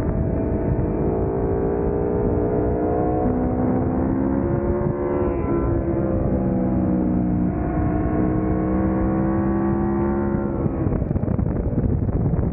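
Aprilia Tuono V4 motorcycle's V4 engine accelerating hard through the gears, its pitch climbing and stepping down at upshifts about five and seven and a half seconds in. The engine note drops off and turns rougher near the end as the throttle is rolled off.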